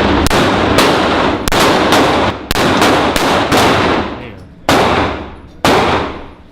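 Gunshots at a shooting range: about nine sharp shots, irregularly spaced half a second to a second apart and slowing toward the end, each followed by a long echoing decay.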